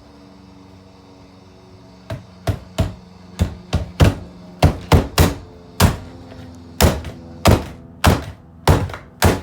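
An alarm clock being smashed with a string of heavy blows: more than a dozen sharp hits, about two a second and some in quick pairs, starting about two seconds in.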